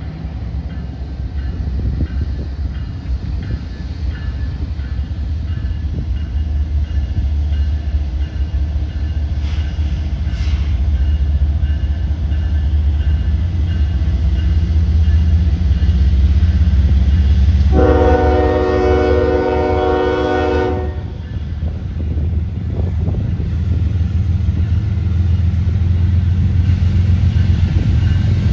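Train rumbling past with a heavy, steady low drone that grows louder. A locomotive horn sounds one blast of about three seconds roughly two-thirds of the way in.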